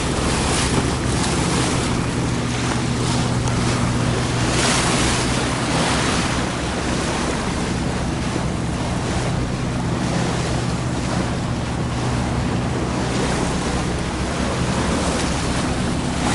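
A motor boat's engine running at a steady, unchanging pitch, under the rush of water along the hull and wind buffeting the microphone.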